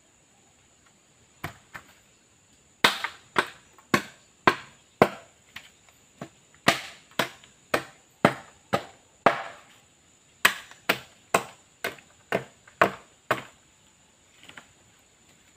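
A blade chopping along a bamboo pole to knock off its nodes: a long series of sharp hollow chops, about two or three a second, with a short pause midway.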